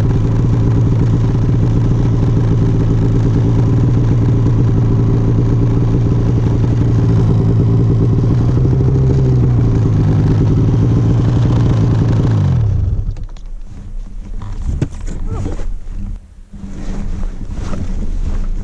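Two-stroke snowmobile engine running loud and steady under throttle through deep snow. About two-thirds of the way through the throttle comes off: the engine pitch falls away to a low idle, with scattered crunching and clattering noises.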